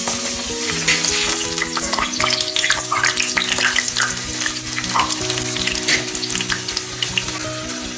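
Hot oil sizzling and crackling around a meat-filled çiğ börek deep-frying in a pan, with frequent small pops. Background music plays underneath.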